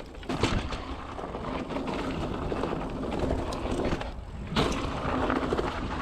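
Mountain bike riding over a dirt trail: a steady rumble of tyres on the ground with scattered clicks and rattles from the bike.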